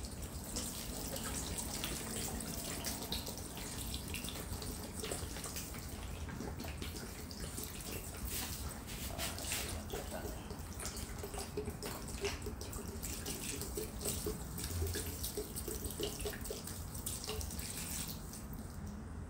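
Water trickling from a plastic bottle through its perforated cap onto the potting soil of a freshly repotted sancang bonsai, with many small irregular splashes as it soaks in. The flow eases off near the end.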